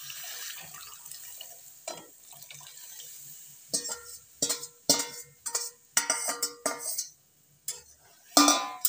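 Boiled chickpeas and their cooking water poured from a steel bowl into a steel kadhai of fried masala, a steady hissing pour. Then, from about four seconds in, a run of sharp ringing metal clanks as the bowl and ladle knock against the kadhai, the loudest near the end.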